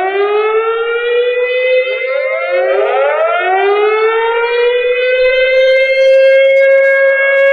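Civil defence air-raid sirens wailing, played as the nuclear-attack warning signal, which means an enemy nuclear strike is imminent. Several overlapping wails start one after another, each rising in pitch before settling into a steady tone.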